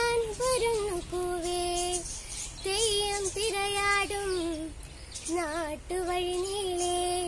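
A girl singing a Malayalam Onam song solo, with no audible accompaniment: held notes that bend and waver, in phrases broken by short breaths.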